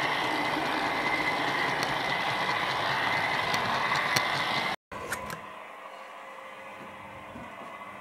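OO gauge model train running along the track, heard from on board: a steady mechanical rattle with a whine and occasional sharp clicks. About five seconds in it cuts off abruptly to a much quieter steady hum.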